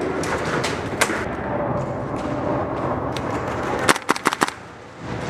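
Airsoft guns firing: scattered single cracks, then a quick string of about five sharp shots about four seconds in, over a steady rustle of movement.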